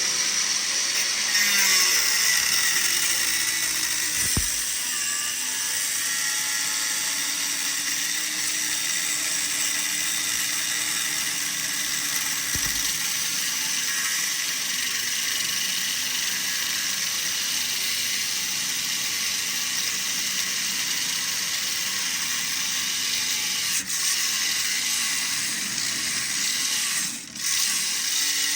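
Handheld power cutting tool running steadily as it cuts through a hardened Grade 8 steel bolt. Twice near the end the sound briefly eases off.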